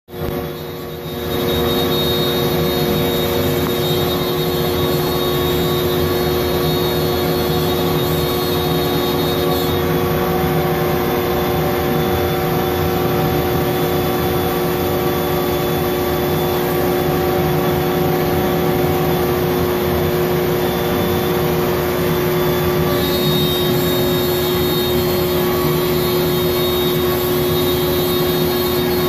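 Electric motor running at a steady pitch, a constant hum with a few shifts in its higher tones.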